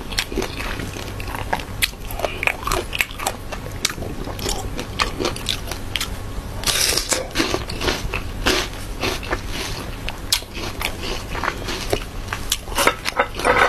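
Crisp, crunching bites and chewing of raw green mango slices, heard up close.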